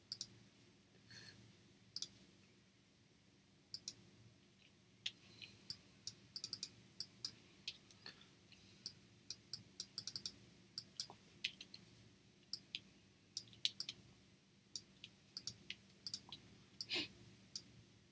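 Irregular clicks of a computer mouse and keyboard, some single and some in quick runs, as text is placed and typed in Adobe Illustrator. A faint low hum sits underneath.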